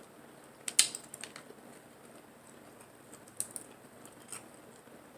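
A few sharp clicks and cracks of snow crab shell being broken and picked apart by hand. The loudest comes about a second in, with smaller ones in the middle and near the end.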